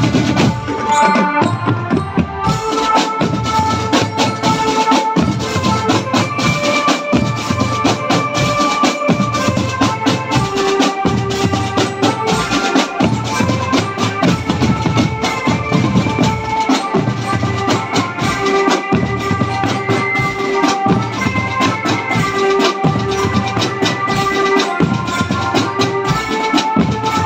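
Marching drum band playing: bass drums and snare drums beat a steady, even rhythm under a melody of held notes.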